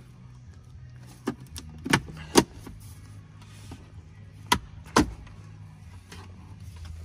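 Plastic clips of the Jaguar F-Pace's centre-console side trim strip snapping free as the strip is pulled off by hand: a series of sharp clicks, the loudest about two and a half and five seconds in.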